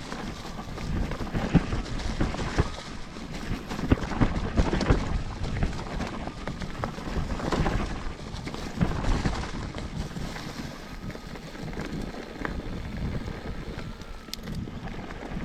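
Wind buffeting the microphone over the rumble and irregular clatter of a mountain bike rolling over a rough trail.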